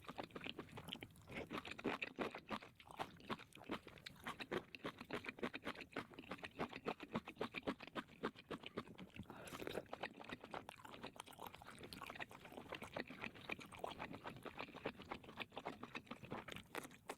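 Close-miked ASMR chewing of crunchy food: many quick, crisp crunches in a row.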